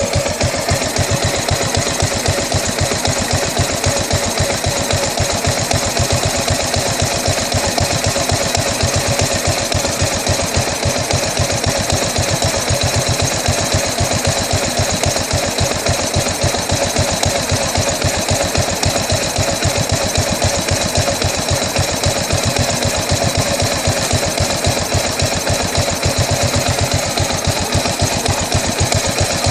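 2008 Buell Blast's single-cylinder engine at a rough idle, a steady run of firing pulses with no revving.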